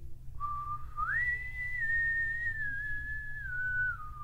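A single long whistled tone with no words over it. It starts low, jumps up about a second in, then slides slowly back down in small steps.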